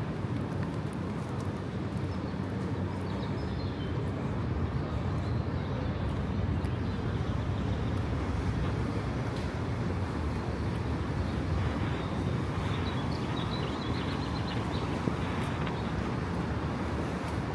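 Downtown street ambience: a steady low hum of city traffic, with a few faint high chirps about three seconds in and again near the end.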